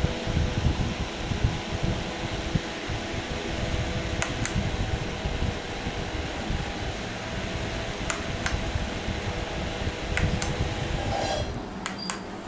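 Small rechargeable desk fan running with a steady electric motor whir and hum, with several pairs of sharp clicks from its push-button switches being pressed. The whir drops away near the end.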